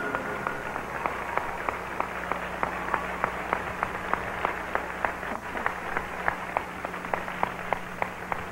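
Audience applause, with distinct, evenly spaced claps about three a second over the steady clapping of the crowd.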